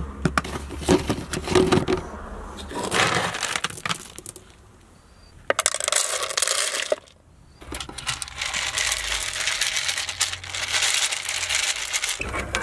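Lid of a plastic pet-food storage container clicking open, then dry dog kibble scooped and poured, rattling into a plastic slow-feeder bowl in stretches of a few seconds each.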